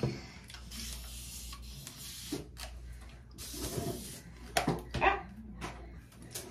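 Hand-held continuous-mist spray bottle hissing onto hair in two long sprays: the first lasts about two seconds, the second, shorter one comes about three and a half seconds in. A few short knocks follow near the end.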